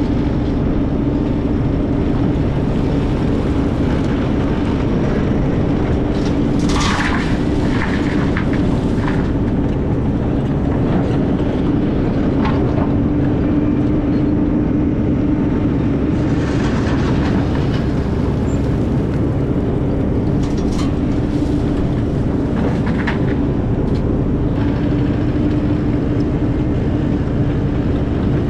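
A heavy diesel excavator engine running steadily under work, a constant hum with a held tone. A handful of sharp clanks and scrapes from the machine's digging and loading stand out over it.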